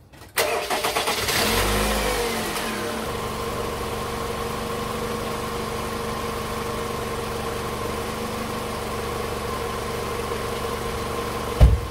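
A 2005 Toyota Camry's 2.4-litre four-cylinder engine is started: the starter cranks briefly, the engine catches and flares up in speed, then settles into a steady idle. There is one short thump near the end.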